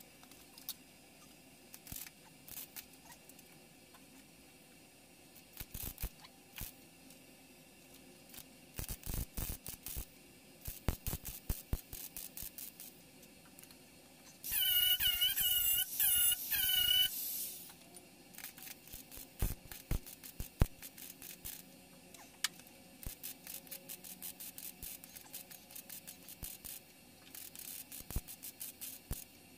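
Scattered clicks and short crackling bursts, running into quick strings near the end as a MIG welder tack-welds rust holes in the steel quarter panel of a 1954 VW bus. About halfway through, a loud wavering squeal lasts about three seconds.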